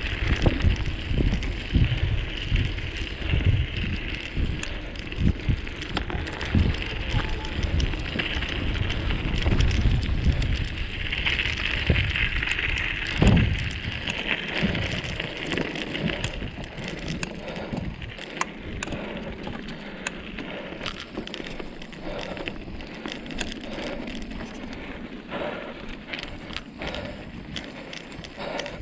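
Wind buffeting the microphone with irregular low thumps over a steady hiss, easing about two-thirds of the way through into light crackling and crunching on the ground.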